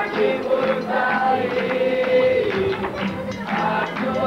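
A group of children singing together in chorus, voices holding long notes.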